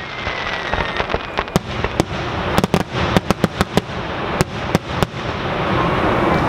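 Aerial fireworks going off: a string of sharp bangs and crackling pops at irregular intervals, thickest about three seconds in, with a thin falling whistle fading out at the very start.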